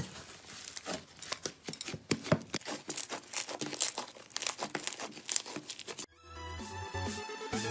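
Slime being squeezed and worked by hand, with a dense run of crackling, popping clicks. About six seconds in it cuts off sharply and electronic music with a steady beat starts.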